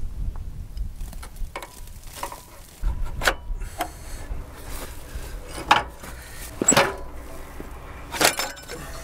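Packed mud being scraped and knocked off a planter row unit's wheels with a metal hand tool, in irregular scrapes with about four sharp knocks; the row unit had plugged with mud from a burrow hole. One knock comes from a boot kicking the wheel.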